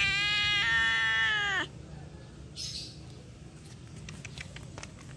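A cat gives one long meow, lasting about a second and a half, that steps in pitch partway through and falls away at the end. Then come a short soft rustle and a few faint clicks.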